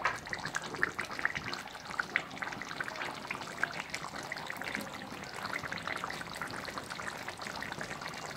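Mutton curry simmering uncovered in a kadhai on a low gas flame: the thick gravy and oil bubbling with a steady run of small pops and crackles.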